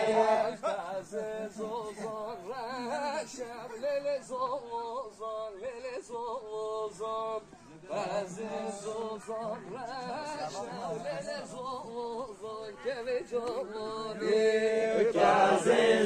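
A man singing a Kurdish govend dance song in a long, wavering, ornamented melodic line. It is softer through the middle, and the louder refrain comes back near the end.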